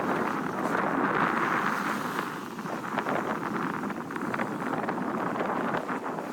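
Wind buffeting the microphone aboard a sailboat under sail, a steady rushing noise with scattered crackles.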